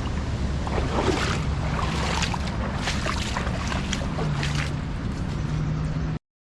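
Outdoor riverside ambience: wind rumbling on the microphone over moving water, with a low steady hum underneath and a few brief rustles or knocks. It cuts off abruptly near the end.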